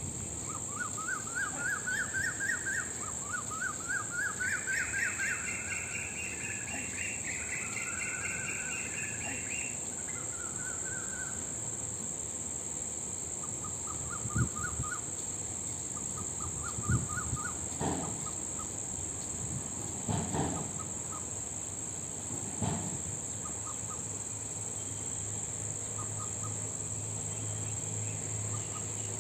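Birds calling outdoors: overlapping runs of quick, repeated rising chirps for the first ten seconds, then a few short, separate calls. A steady high-pitched insect drone runs underneath.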